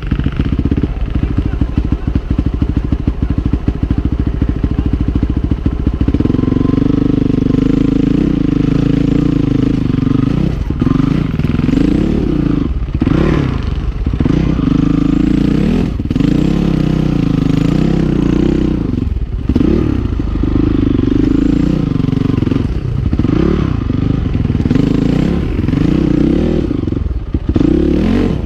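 Honda CRF450R single-cylinder four-stroke dirt bike engine with a Rekluse auto-clutch, climbing a rocky trail. For the first few seconds it runs at low revs with separate firing pulses, then steadies and is blipped up and down again and again as the rider works over the rocks.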